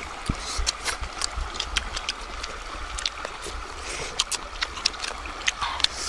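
Stream water running steadily, with frequent small clicks and smacks of people eating fish by hand.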